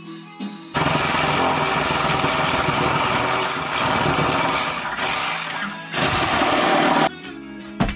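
A power tool running loudly for about six seconds, with a brief break near the end, over background music.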